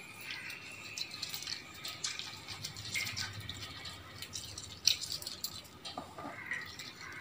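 A lemon squeezed by hand over spice-coated raw chicken in a steel bowl: faint wet squishing and juice dripping, with scattered small ticks and one sharper tick about five seconds in.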